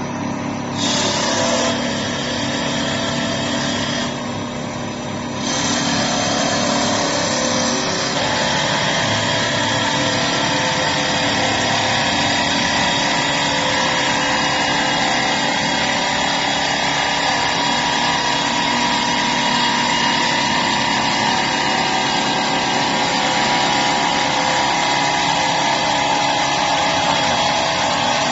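CNC wood turning lathe running, its motor and spindle humming steadily, with the noisy hiss of the cutter working the spinning wood. The cutting noise starts about a second in, drops off briefly around four seconds, then carries on steadily.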